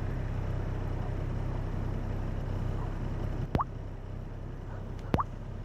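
A steady, low engine-like droning hum, which the person recording takes for the noise made by the low-flying lights she suspects are helicopters. Twice in the second half, about a second and a half apart, a short quick chirp sweeps upward in pitch.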